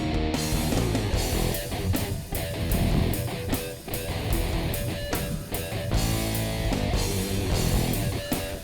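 Background music: a guitar-driven rock track with a steady beat.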